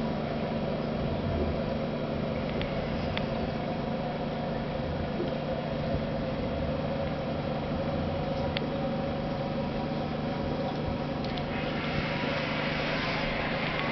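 Steady low motor hum and water noise of a running tropical aquarium's filter, with a few faint clicks. From about eleven seconds in, a brighter hiss of bubbling water grows louder.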